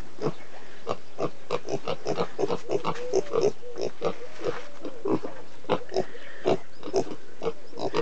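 Piglets grunting: a fast, irregular run of short grunts, several a second.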